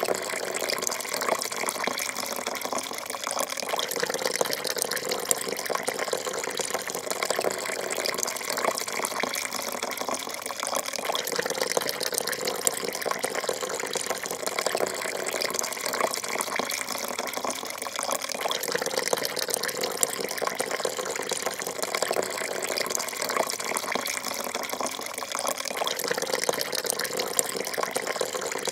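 A thin stream of coffee pouring steadily into a cup that is already partly filled. It makes a continuous liquid splashing with fine, constant spattering.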